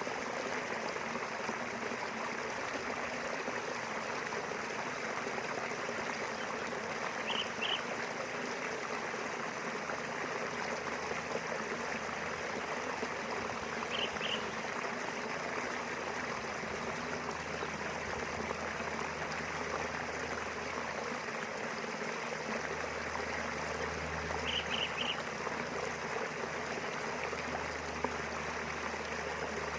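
Small river flowing with a steady rushing sound. A bird gives short high chirps three times, twice as a pair and once as a triplet, and a low rumble comes in about two-thirds of the way through.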